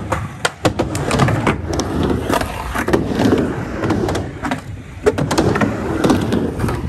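Skateboard rolling on a quarter-pipe ramp: wheel rumble with several sharp clacks of the board, the loudest about five seconds in.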